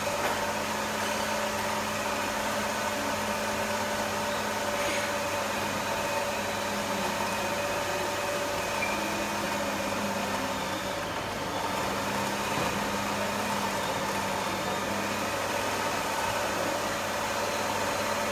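Electric kitchen appliance motor, such as a food processor, running steadily with an even hum, grinding the raw bonbon mixture.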